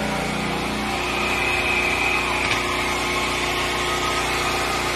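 Electric hot-air blower running steadily with a fan whine, blowing heat into a fridge to melt ice off its iced-up evaporator coils.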